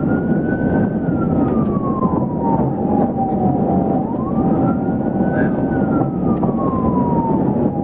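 Police siren in a slow wail, pitch sweeping up quickly then falling off slowly, repeating about every four seconds, over a steady loud rush of vehicle engine and road noise.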